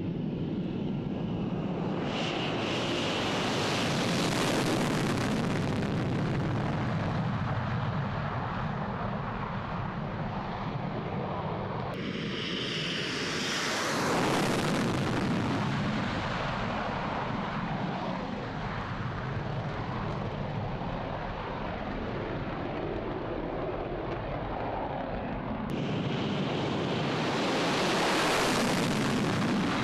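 Jet noise from Tu-22M3 bombers' afterburning turbofans at takeoff power as the aircraft roll past. It swells and fades three times, with abrupt jumps between the swells.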